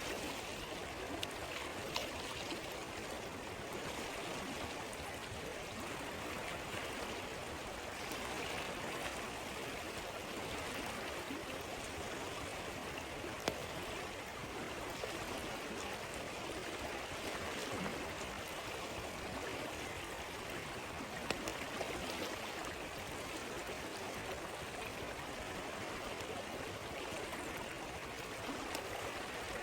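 River water flowing steadily, with a few scattered sharp pops from a crackling wood campfire.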